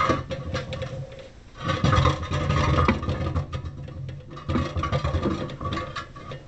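Heavy old Craftsman bench grinder on its steel pedestal being turned around by hand, scraping and rumbling as it is dragged round. There are two spells of dragging, the longer one about two seconds in, with knocks and rattles in the second.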